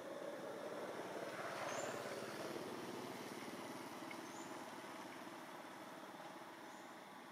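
A motor vehicle passing, its engine noise swelling to a peak about two seconds in and then fading slowly, with a few faint, short, high chirps.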